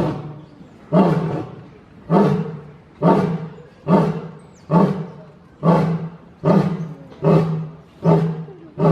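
Lion roaring, in a run of short, loud grunts about one a second that come slightly faster toward the end.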